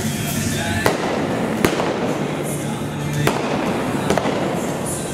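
A .45 caliber revolver loaded with black powder blanks fires four sharp shots at balloon targets from a galloping horse, the shots spread unevenly over about three seconds, over background music.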